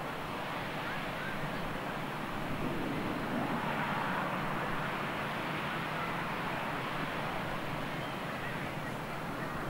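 Shoreline ambience: a steady wash of wind and water noise with faint distant voices and occasional short bird calls.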